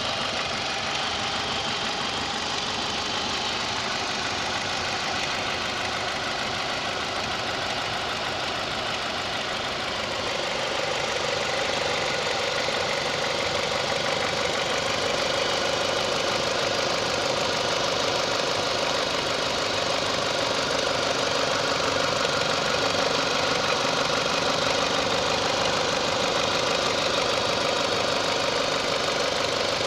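Renault Mégane II 1.4 four-cylinder petrol engine running at idle, with the slight knock the owner hears once it is hot. About ten seconds in it gets a little louder and a steady tone joins it.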